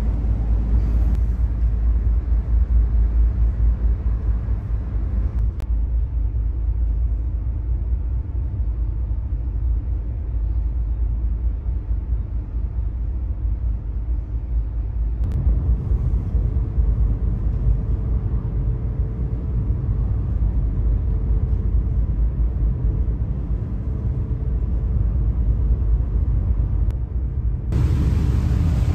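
Steady low rumble of the ferry's engines and hull under way, heard from inside the passenger cabin. The sound shifts about halfway through, and near the end gives way to wind noise on the microphone.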